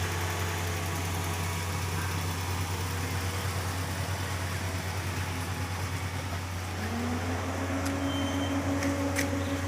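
Steady low engine hum, like a motor idling. About seven seconds in, a second, higher tone rises and then holds steady.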